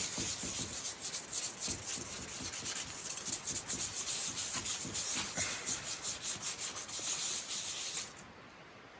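Sandpaper rubbed by hand over a car's metal hood in quick back-and-forth strokes, smoothing sandblasted rust-repair spots before paint. The sanding stops suddenly about eight seconds in.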